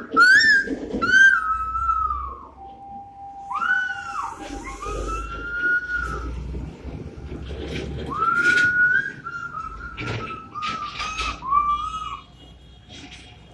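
Whistling: a string of long, gliding notes rising and falling in a wavering tune, with a low rumble of a passing truck in the middle.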